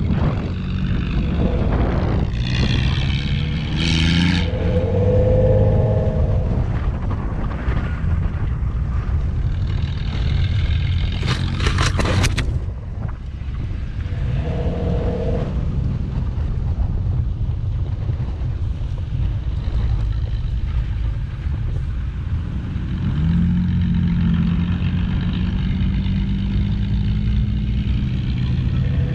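Toyota FJ Cruiser's V6 engine running with a steady low rumble as the truck drives slowly over a rutted dirt track, picked up by a camera mounted on its hood. A steadier engine note comes in near the end.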